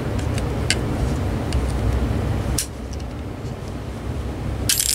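A thin metal tool prying at the small speaker seated in a cordless phone handset's plastic back, making several small sharp clicks, then a louder brief crack near the end as the speaker snaps loose.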